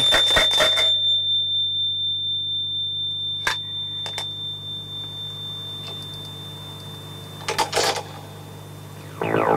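A single high, steady tone rings for about eight seconds and slowly fades, over a low steady hum. Sharp clicks come at the start, once about three and a half seconds in, and in a short cluster near eight seconds. A low drone comes in just before the end.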